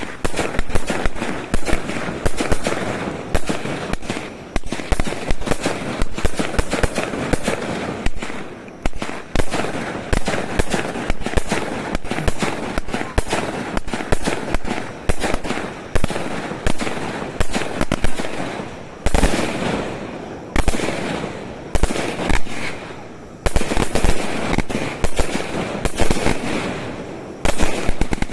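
Fireworks going off in a rapid, continuous barrage: sharp bangs one after another with crackling between them.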